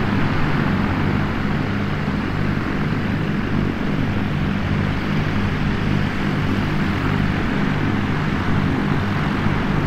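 Sound-effect recording of a twin-propeller light aircraft idling: a steady engine drone with an even pulse in its low notes.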